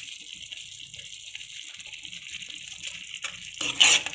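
Chutney paste of tomato, garlic and red chilli sizzling in hot mustard oil in a kadhai, a steady high hiss. Near the end a metal spoon starts stirring it, scraping and clattering against the pan in loud strokes.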